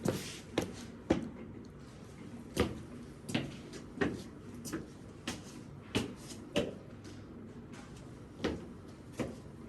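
Irregular knocks and taps, about a dozen spaced unevenly, each ringing briefly in a small room.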